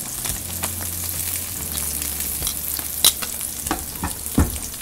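Slices of Dominican frying cheese (queso de freír) sizzling in hot oil in a nonstick frying pan, with a steady hiss and small pops and crackles. A sharp click comes about three seconds in, and a heavier knock a little over a second later.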